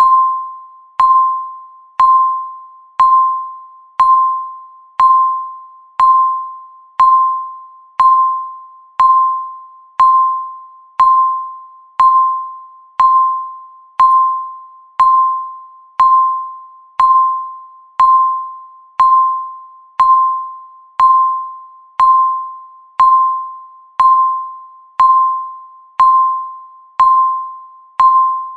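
Countdown-timer beeps: a single clear mid-pitched electronic tone that starts sharply and fades away, repeating once every second as each second of the countdown passes.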